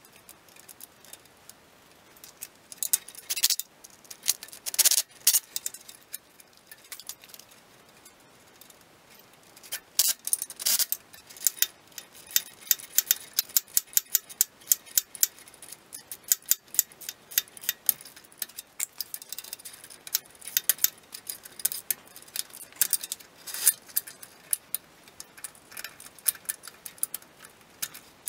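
Small steel hardware (wire-rope cable, eye bolts and clamps) clinking and rattling as it is handled, a long run of light, irregular metallic clicks that comes thickest through the middle.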